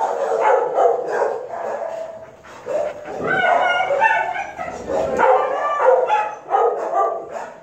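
Dogs in shelter kennels barking, one bark after another with hardly a break.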